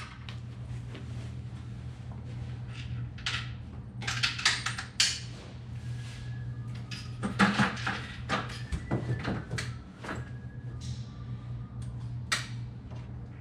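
Scattered light knocks and clatters of vertical-blind hardware and a metal step stool being handled, the busiest cluster about seven to eight seconds in, over a steady low hum.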